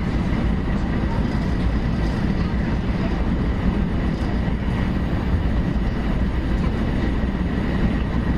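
Steady running noise inside a 500-series Shinkansen car: an even low rumble from the wheels and track, with a faint steady high tone above it.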